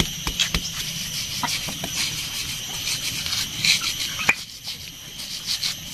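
A large kitchen knife cutting slices off a crisp water apple held in the hand: a series of small irregular crunchy clicks and short scrapes, with one sharper click about four seconds in. A steady high-pitched drone runs underneath.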